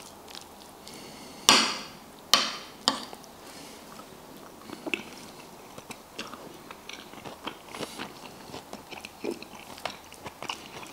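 Fork clinking and scraping on a ceramic plate, three sharp clinks in the first three seconds, then close-miked chewing of pasta with many small wet mouth clicks.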